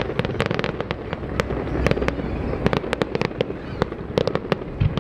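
Aerial fireworks bursting: a rapid, irregular run of sharp cracks and pops, dozens of reports over a low rumble.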